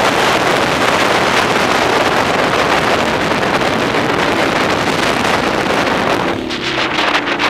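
Quad (ATV) engine running hard as it climbs a sand dune, mostly buried under heavy wind buffeting on the microphone. About six seconds in, the wind noise drops and the engine's pitched drone comes through.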